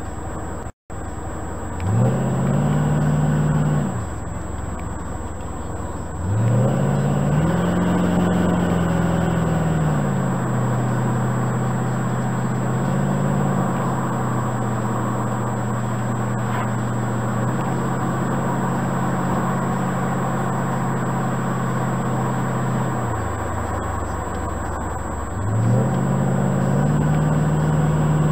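1969 Corvette C3 Stingray's V8 engine driving on a winding road, heard from inside the car. The engine note rises under throttle about two seconds in and falls away, then rises again and settles into a steady drone. It drops off and picks up again near the end. The sound cuts out completely for a moment just under a second in.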